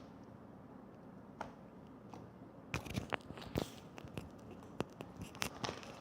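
Homemade slime being stretched and squeezed by hand, making a quick series of sharp clicks and pops that start about three seconds in.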